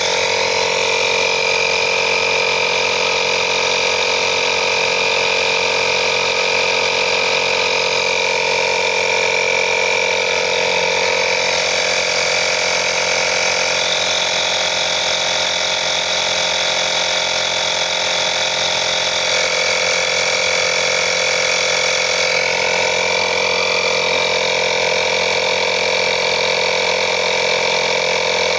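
INGCO digital auto air compressor running steadily while it inflates a car tyre through a hose clipped to the valve stem. Its tone shifts slightly twice.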